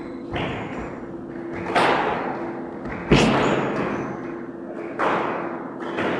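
Squash ball being hit back and forth in a rally, about five loud hits on racket and court walls, each ringing on in the echo of the court, the loudest about three seconds in.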